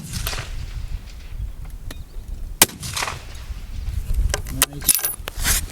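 Fullbore target rifle shots on a firing range: a sharp crack about two and a half seconds in and another near the end, each followed by a rolling echo, with a few smaller clicks between.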